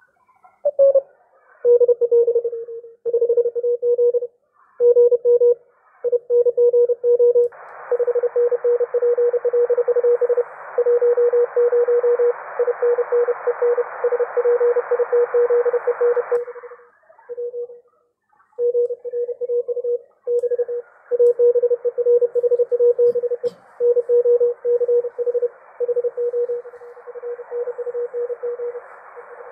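A Morse code (CW) signal on the 30 m amateur band, heard from an Icom IC-R71E communications receiver through a bhi NEIM1031 DSP noise-cancelling unit: a single steady beep keyed on and off in dots and dashes. Band hiss rises under the beeps from about 7 to 16 seconds and again from about 20 seconds, with near-clean stretches between, as the noise-cancelling unit's settings are changed.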